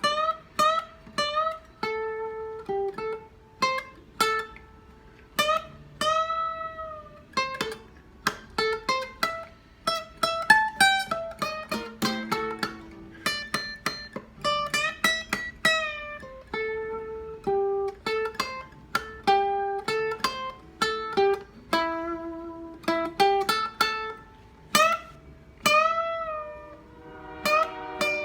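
Guitar played solo: a blues line of picked single notes and quick runs, with a few notes bent up and back down in pitch.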